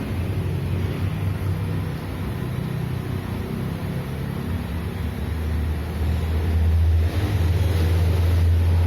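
A steady low-pitched hum with a faint noisy background, growing louder about seven seconds in.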